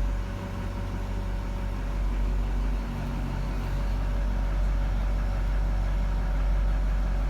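GMC C5500 Kodiak/Topkick's 6.6-litre Duramax turbo diesel idling steadily, heard from inside the cab.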